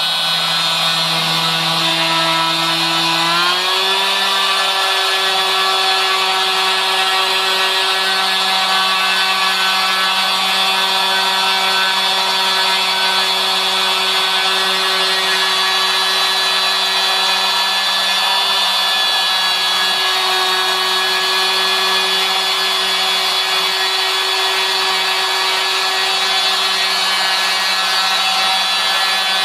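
CNC router spindle motor whining steadily as a small end mill cuts a clock gear out of a wooden sheet. About three seconds in, its pitch rises slightly and then holds steady.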